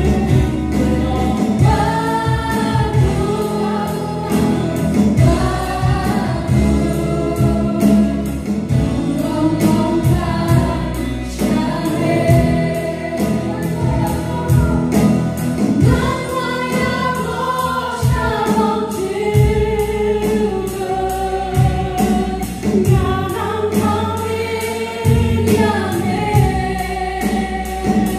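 Live gospel praise-and-worship song: a group of voices, mostly women, singing together over a band of drum kit, acoustic guitar and bass guitar, with a steady drum beat.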